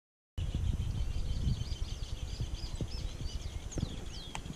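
After a brief silence, several birds chirp and whistle over a steady low rumble on the microphone, with one sharp click near the end.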